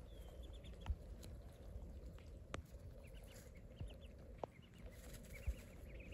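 Young Muscovy ducks peeping softly in short runs of quick, high notes as they feed, with a few sharp clicks between them.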